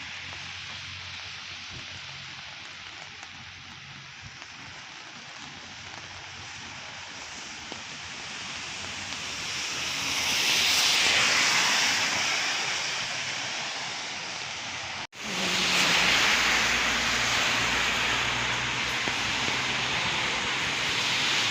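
Steady hiss of heavy rain and wet-road traffic; a vehicle's tyres swish past on the wet road, swelling and fading around ten to twelve seconds in. About fifteen seconds in the sound cuts out for an instant, then the rain hiss comes back louder.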